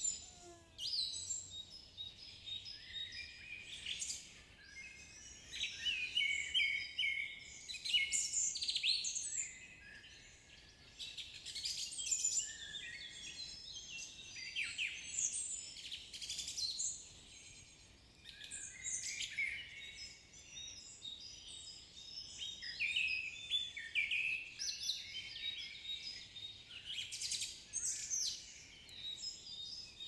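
A dense chorus of birds chirping and whistling, with many high-pitched calls overlapping.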